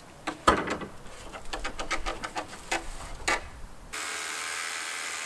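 Timber framing members knocking and scraping as a beam is pivoted and set into place, with one sharp wooden knock about half a second in. About four seconds in, a steady hiss begins.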